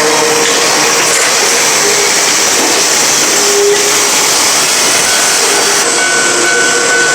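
Level-crossing electric bell ringing continuously, a loud, steady, dense ringing.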